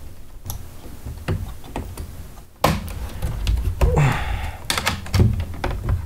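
Irregular clicks and taps of hard plastic as a screwdriver pries at the stiff snap-in clips holding down a Roomba 650's faceplate, which are refusing to release. The clicking gets louder and busier about two and a half seconds in.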